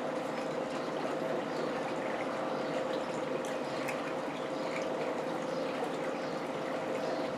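Steady rushing hum with a constant tone, like a running electric motor, with a few faint clicks from eating crab legs.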